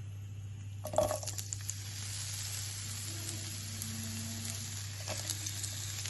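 Chopped onions tipped into hot olive oil in a pan: a clatter about a second in as they go in, then steady sizzling, with a few light clicks of stirring about five seconds in.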